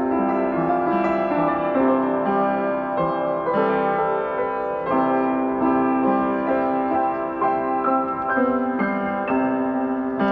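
Piano music: a melody of single notes played over held lower notes.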